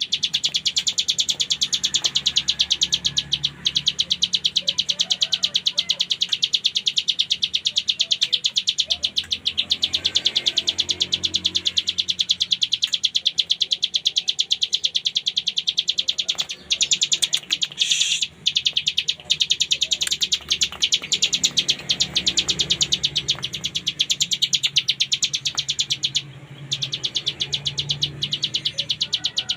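Ciblek gunung (hill prinia) singing an unbroken, fast rattling trill of many notes a second, the continuous 'ngebren' song prized for tutoring other songbirds. There are a couple of brief breaks in the second half.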